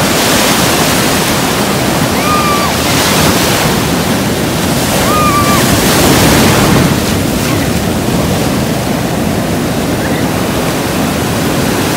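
Ocean surf: waves breaking and washing through the shallows, a loud, steady rushing that swells a little around the middle.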